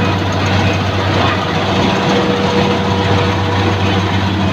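Rice harvester running steadily: a constant low engine hum under a dense, even mechanical noise.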